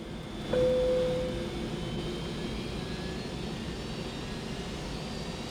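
Steady drone inside an airliner cabin. About half a second in, a single cabin chime rings and fades over a second or two.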